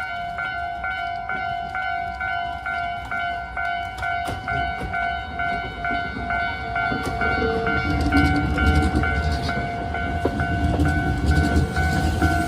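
Japanese level crossing warning bell ringing a rapid, even electronic ding-ding. A train's low rumble comes in about halfway and grows louder as it passes through the crossing.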